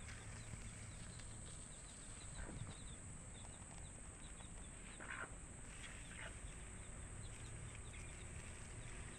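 Faint outdoor ambience: small birds chirping over and over, with a steady high insect hiss and a few slightly louder calls about two and a half, five and six seconds in.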